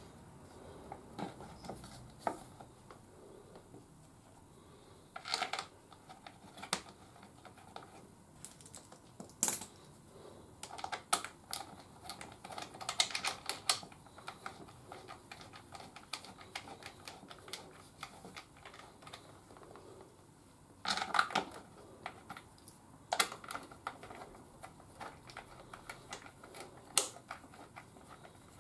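A plastic rear wheel hugger and its bolts being handled and fitted to a motorcycle's final drive housing: scattered light clicks and rattles, coming in several short bursts.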